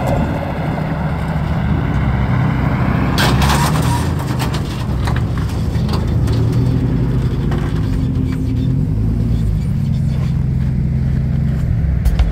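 Renault Twingo RS rally car's 1.6-litre four-cylinder engine running at low revs as the car is driven up onto a car trailer, with a brief clatter about three seconds in.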